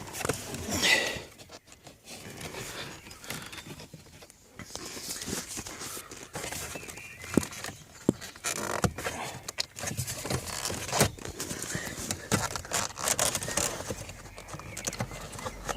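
Hands working loose a car's plastic dashboard trim panel held by plastic clips: scattered clicks, knocks and rustling of plastic throughout.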